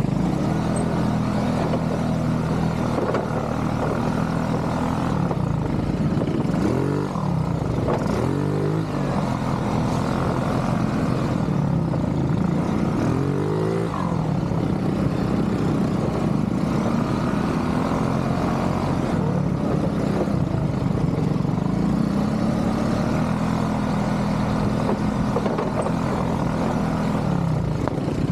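ATV engine running while riding, its pitch dipping and climbing again three times as the throttle is eased off and reopened.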